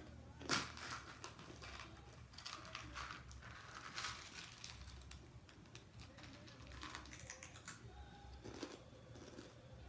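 Close-miked eating sounds: scattered crunchy clicks and crackles of chewing, mixed with a clear plastic cup being handled and tipped up to the mouth.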